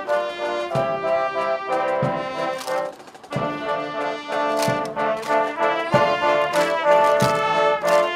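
Background music: brass instruments playing a tune over a beat, dropping out briefly about three seconds in.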